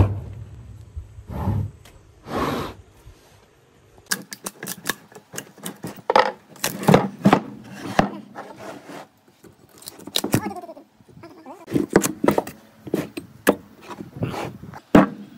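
Heavy wooden slabs handled on a wooden worktable: a sharp knock as a slab is set down, then from about four seconds in a busy run of knocks and scrapes as the pieces are shifted and stacked.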